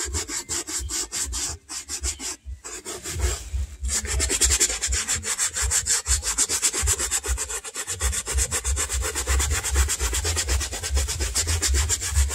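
A stiff-bristled wooden-backed brush scrubbing a black suede boot in rapid back-and-forth strokes, several a second, with a few brief pauses in the first four seconds.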